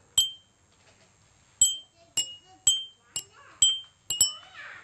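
Water-filled glass cups struck with a pen, about eight taps in a row, each ringing a clear bell-like note. The notes differ in pitch because the glasses hold different water levels, tuning them to a rough scale.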